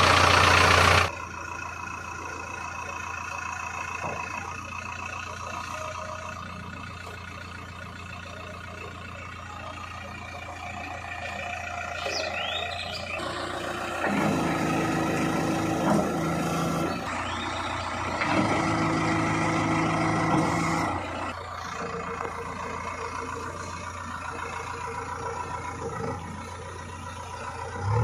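JCB 3DX backhoe loader's diesel engine running steadily. Its note grows louder and stronger twice in the middle, around 14 to 17 s and again around 18 to 21 s, as the machine works. A loud rush of noise in the first second cuts off abruptly.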